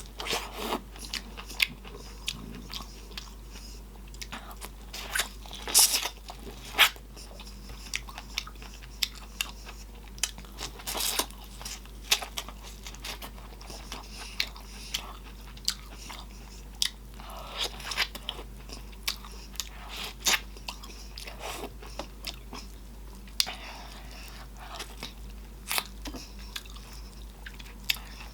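Close-miked eating: chewing with many sharp, wet lip smacks at an uneven pace, and a few longer slurps.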